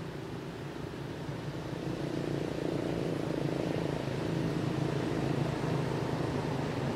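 A steady low engine drone that grows louder about two seconds in.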